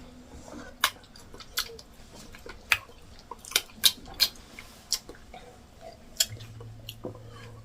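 Close-up mukbang eating sounds of plantain fufu with egusi soup: wet mouth smacks and clicks of chewing at irregular intervals, about a dozen in all.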